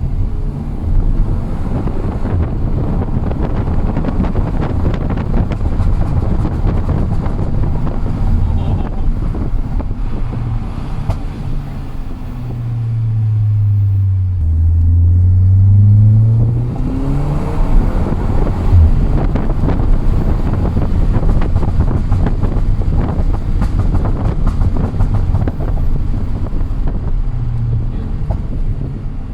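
Audi TT Mk2's 2.0 TFSI turbocharged four-cylinder engine running loud, with exhaust pops and crackles throughout. About halfway through the revs fall and then climb again, followed shortly by a single sharp bang.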